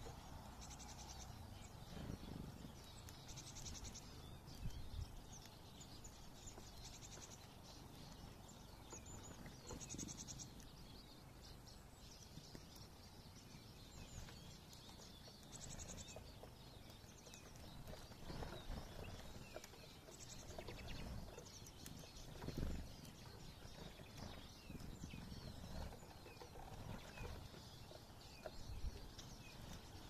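Faint calls of small songbirds feeding on the ground: short, high trilled twitters every few seconds, with a few soft low thumps in between.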